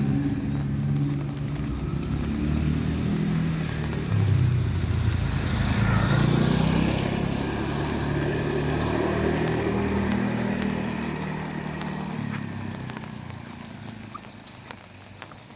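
A motor vehicle's engine running as it passes close by, its pitch shifting, loudest around the middle and fading away over the last few seconds.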